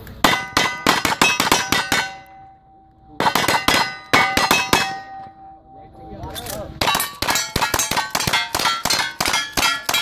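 Rapid gunfire from revolvers and rifles, with steel plate targets clanging and ringing on each hit. The shots come in three fast strings with short pauses between them.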